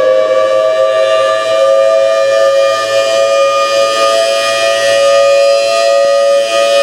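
Federal Signal Thunderbolt 1003 outdoor warning siren sounding a loud, steady two-note wail during a test. Its pitch is still creeping up slightly at the start, then holds at full tone.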